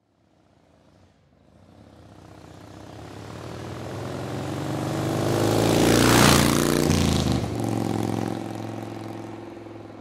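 A motor vehicle's engine passing by: it grows steadily louder, peaks about six seconds in, then drops in pitch and fades away.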